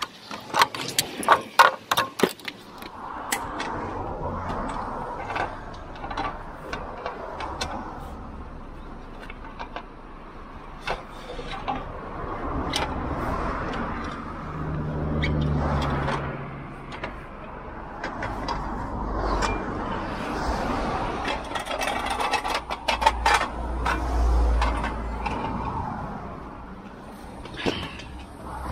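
Steel wheel dollies being pulled from under a recovery truck and handled on tarmac: a run of sharp metal clanks in the first few seconds, then scraping, rustling and a few more knocks as they are set around a car's wheels.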